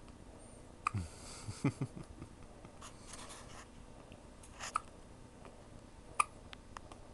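Hiccups: a few short, sharp hiccups several seconds apart, about a second in, near the middle and about six seconds in, with faint rustling between.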